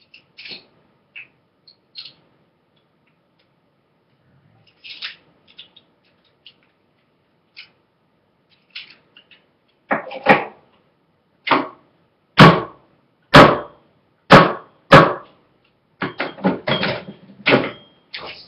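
A flathead screwdriver being worked against the lid of a paint can to open it. Light scattered clicks come first. About ten seconds in there are roughly seven loud sharp knocks, followed by a quick flurry of smaller knocks near the end.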